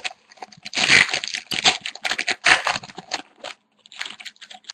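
Hockey card packaging being torn and crinkled open by hand: an irregular run of crunching and crinkling that thins out near the end.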